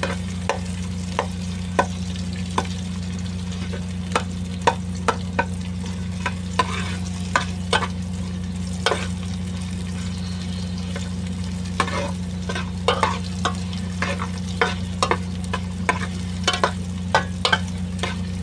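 Metal spoon stirring and scraping garlic, onion, ginger and chili frying in oil in an aluminium pot, with irregular clicks and taps of the spoon against the pot; the aromatics are being sautéed. A steady low hum runs underneath.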